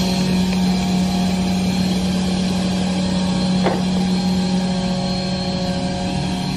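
Machine running with a steady hum and several steady higher tones, with one brief sharper sound a little past halfway through.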